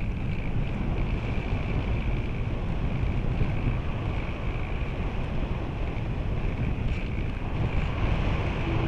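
Steady rush of airflow buffeting the microphone of a camera riding on a radio-controlled glider in flight, with a faint high whine held throughout.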